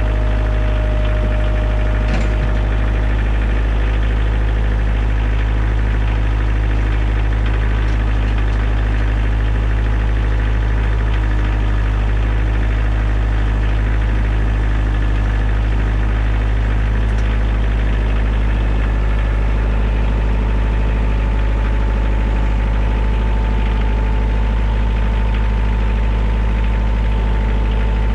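Kioti compact tractor's diesel engine running steadily at idle close by, an even, unbroken drone. A faint steady whine joins it about two-thirds of the way through.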